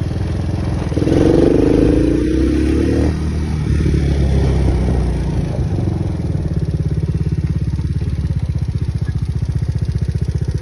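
Small off-road vehicle engine running, revving up briefly about a second in with a rising pitch, then settling back to a steady run with an even pulsing beat through the second half.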